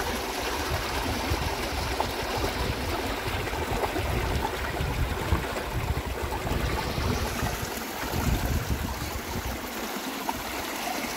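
Shallow creek water pouring over a low drop through branches and a fallen steel bridge frame, a steady rushing splash.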